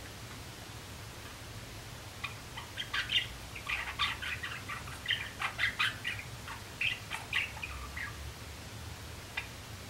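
Young male Java sparrow practising its song: a quick run of short clicking and chirping notes that starts about two seconds in and goes on for about six seconds, with one last note near the end.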